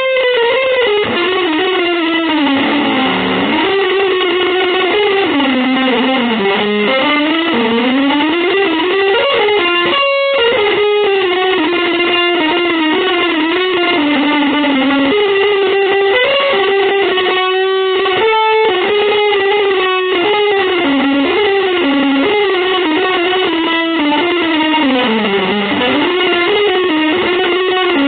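Music: an electric guitar playing a continuous, winding melodic line with pitch glides and bends, through an effects unit.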